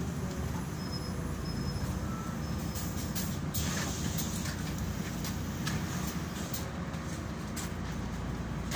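Solaris Urbino 12 III city bus driving along, heard from inside the passenger cabin: a steady low rumble of engine and running gear, with a few light clicks and rattles in the middle.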